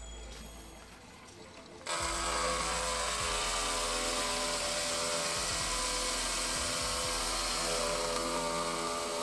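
Drill press spinning a hole saw through a carbon-fibre sheet, cutting a round gauge hole. It starts suddenly about two seconds in and runs steadily as a loud hiss over a steady hum.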